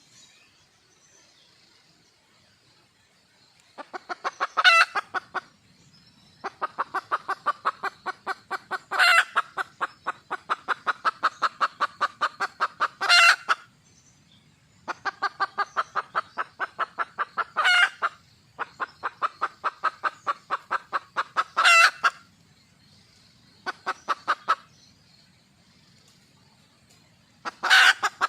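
Red junglefowl hen calling for a mate. After about four seconds of quiet come runs of rapid clucks, about eight a second, with a louder, higher note breaking through every four to five seconds.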